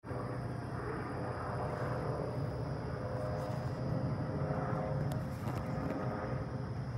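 Airbus H145 twin-turbine helicopter flying in on its approach to land, a steady rotor and engine drone with a faint humming tone in it.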